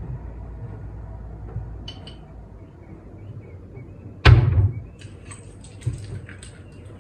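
A loud sharp thud about four seconds in, followed by a string of light clicks and rattles, over a low steady rumble.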